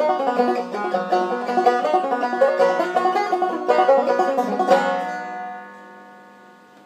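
Banjo played clawhammer style: a quick run of plucked and brushed notes, ending about five seconds in on a final strum that is left ringing and fades away.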